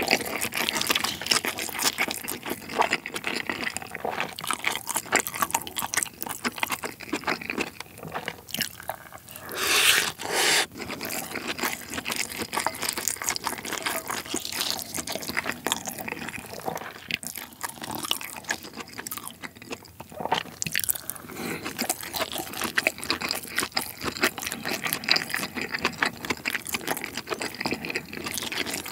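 Close-miked chewing of spoonfuls of saucy Chinese bibimbap (spicy stir-fried seafood rice): wet, sticky mouth sounds and small crunches, with a louder stretch about ten seconds in.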